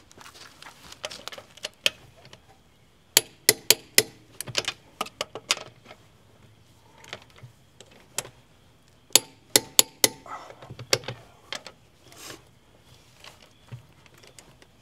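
Runs of sharp metallic clicks, several quick clicks at a time, as the lug bolts are fitted and run in on the rear wheel of a Mercedes ML350 with a hand tool.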